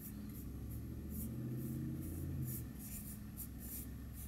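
Paintbrush bristles swishing over wooden planks in short strokes, about two or three a second, as a thin watery stain is brushed on. A low steady hum sits underneath.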